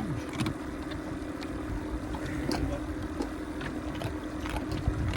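An engine idling steadily: a low rumble with a constant hum, and a few faint clicks and knocks over it.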